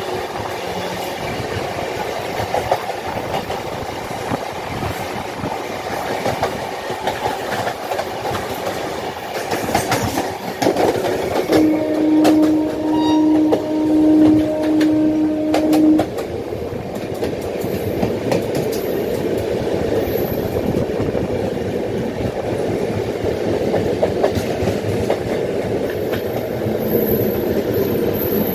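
Two passenger trains running side by side on parallel tracks: a steady rumble and clickety-clack of coach wheels on rail joints, heard close up from an open coach door. About twelve seconds in, a train horn sounds for about four seconds, and a faint high whine comes in near the end.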